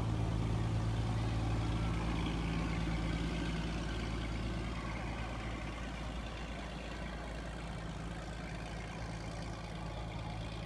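Engine of a long wooden passenger boat running steadily as it motors past, a low hum that slowly fades as the boat moves away.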